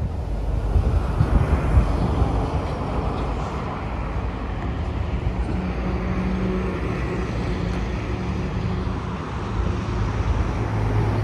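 Road traffic passing close by on a bridge: a steady rush of car tyres and engines, with a passing engine's hum standing out in the second half.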